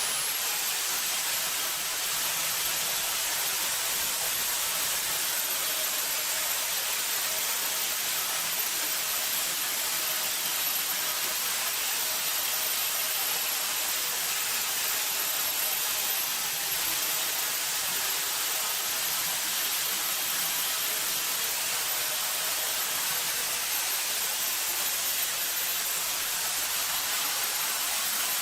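Electric motor of a power tool running steadily, a high whine over a constant hiss. Its pitch dips and climbs back up right at the start.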